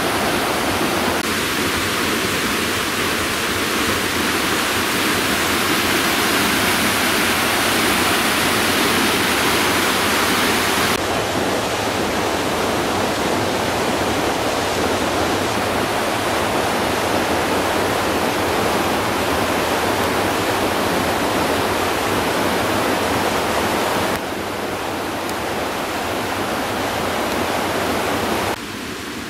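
Waterfall rushing, a loud, steady wash of water noise. It shifts abruptly in level and tone a few times, dropping somewhat about 11 seconds in and again near the end.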